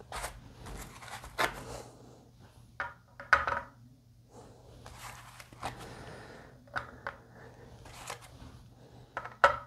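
Small metal guitar tuners clicking and tapping as they are handled and set into the tuner holes of a wooden headstock. The light clicks come scattered, with a few louder taps about three seconds in and again near the end, over a steady low hum.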